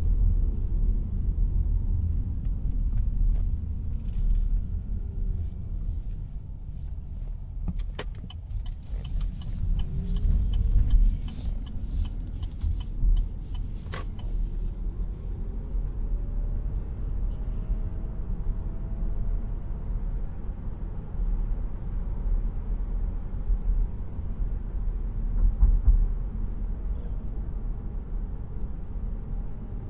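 Opel Ampera-e electric car driving: a steady low rumble of road and tyre noise with a faint electric-motor whine that glides up and down in pitch with speed. A run of sharp clicks comes between about 8 and 14 seconds in.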